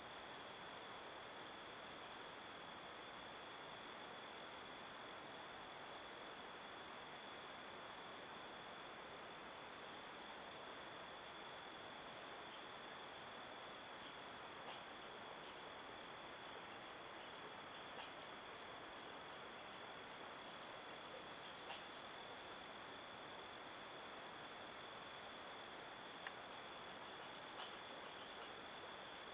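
Insects calling: a steady high trill with short, regular chirps above it at about two a second, over a faint hiss, with a few faint ticks.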